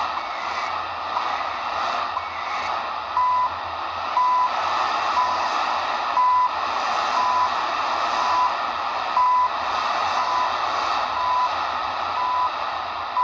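CHU Canada time signal on 3330 kHz, received in AM on a Degen DE1103 shortwave portable and heard through its speaker: a steady hiss of static with a short high beep once a second, the beeps starting about three seconds in. Each beep is a seconds tick of the time station.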